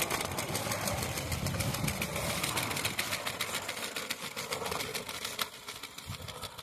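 Miniature live-steam locomotive running, a quick, even run of sharp exhaust beats that grow fainter and thin out about five seconds in as it moves away.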